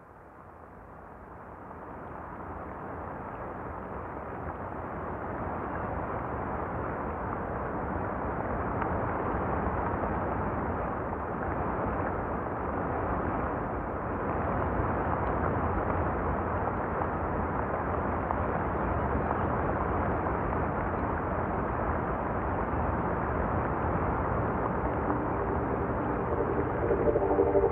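Opening of an ambient electronic soundtrack: a low rumbling noise fades in from silence over the first few seconds and then holds steady. Near the end, a chord of held tones comes in over it.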